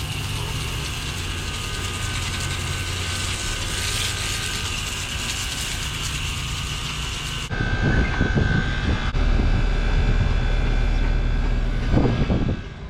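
Steady mechanical running of an air-conditioning unit's condenser fan and compressor, a constant whir with a few steady tones. About seven and a half seconds in, the sound turns abruptly louder and deeper with low rumbling, then drops away near the end.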